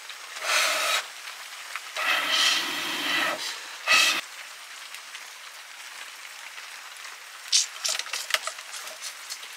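Puffs of breath blown through a blowpipe into a wood cooking fire to fan it: three rushing blows in the first four seconds, the middle one longest. A few light clicks follow near the end.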